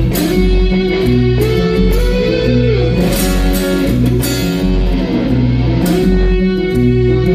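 Live band playing an instrumental break between sung lines: a repeating bass figure and drum hits under electric guitar notes that slide up and down in pitch.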